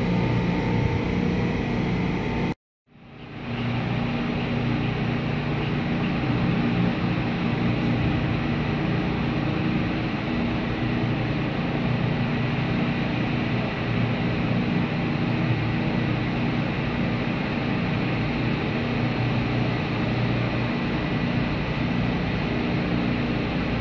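Steady drone of a container ship under way, heard from its deck: a low machinery and ventilation hum under a broad rush of air. The sound cuts out for a moment about two and a half seconds in, then fades back up.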